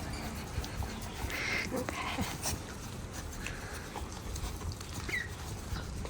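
Dogs chewing and gnawing on big meaty bones: irregular crunching and cracking, with a couple of brief high squeaks.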